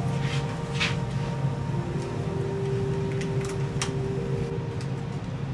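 Scattered light clicks and taps as hands work the metal bracket covering the driver boards on the back of an LED TV chassis, over a steady low background hum.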